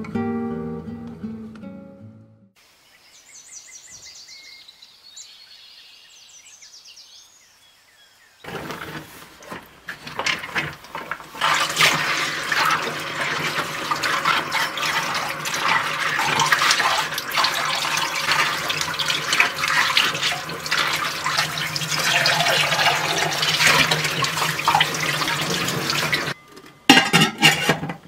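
Kitchen tap running into a stainless steel sink while dishes are washed by hand, with water splashing and dishes clinking; it starts about eight seconds in and stops shortly before the end, after a quiet stretch. Acoustic guitar music fades out in the first couple of seconds.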